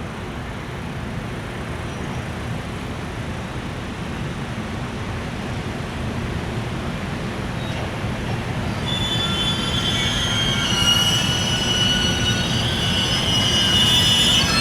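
Container freight train pulling out, its steady rumble on the rails growing louder. About nine seconds in, high-pitched wheel squeal sets in and keeps getting stronger.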